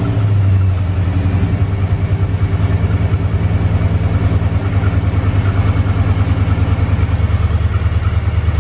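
Chevy Silverado's LS V8 idling just after starting, with a rapid pulsing beat. The owners suspect it is missing, and the check-engine light flashes for a cylinder 7 misfire.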